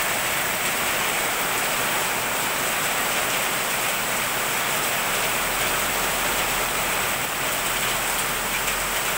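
Heavy rain pouring down in a steady hiss, with runoff streaming off an awning edge.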